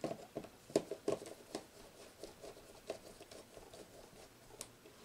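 Faint, irregular ticks and light scrapes of hands handling control wire at a DIN-rail terminal block.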